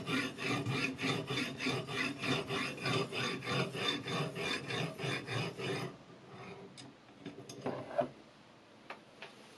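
Whetstone on a guided-rod sharpening system rubbed back and forth along the edge of a Chinese chef's knife: an even rasping at about three to four strokes a second. It stops about six seconds in, and a few light clicks follow as the rod is handled and set aside.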